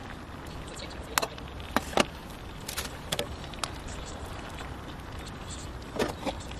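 Cooking utensils clicking and clinking a few times: a ladle is lifted from a metal bowl and then stirs a pot of stew on a portable gas stove, with a cluster of clinks near the end. A steady hiss lies underneath.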